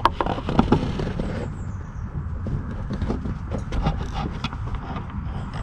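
Irregular light clicks and knocks of hand tools and parts being handled while working on a car's clutch slave cylinder, over a steady low rumble.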